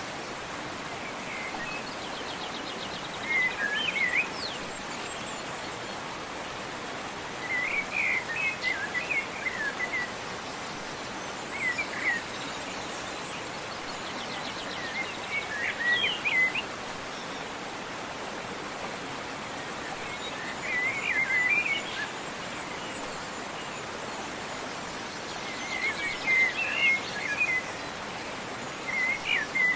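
Songbird singing short twittering phrases every four or five seconds over the steady rush of a waterfall.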